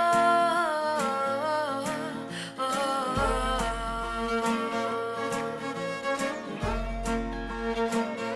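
Film song music: a gliding melody over a steady beat of about two ticks a second, with deep bass notes coming in about three seconds in and again near the end.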